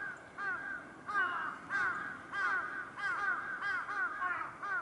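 A flock of birds calling: many short, arched, harsh calls overlapping, several a second.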